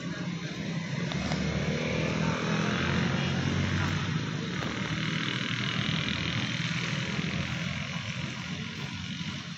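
An engine running steadily, growing a little louder about three seconds in and then slowly easing off.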